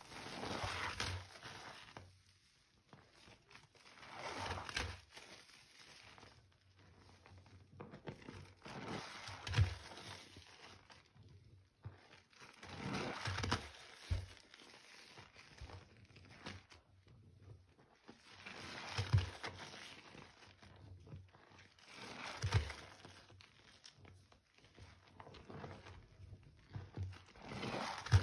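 A gloved hand mashing and squeezing recycled powder into water in a basin, working it into a wet paste. The sound comes in about seven strokes, each a second or two long, every three to four seconds, some with a soft low thump.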